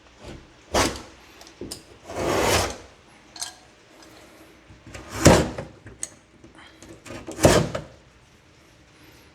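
Keyhole saw rasping through drywall in a few separate, irregular strokes. The loudest strokes come past the middle and near the end.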